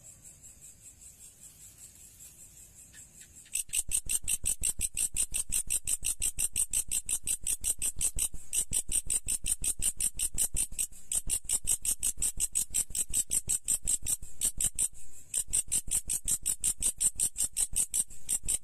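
An insect stridulating: a fast, even run of short high-pitched chirps, about five a second, faint at first and then loud from about three and a half seconds in.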